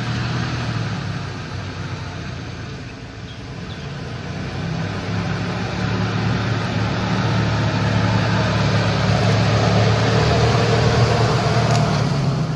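Truck driving, its engine running under steady road and tyre noise, growing louder over the second half.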